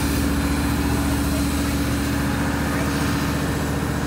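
Heavy engine running steadily: a loud, even hum with a low, regular pulsing beneath it.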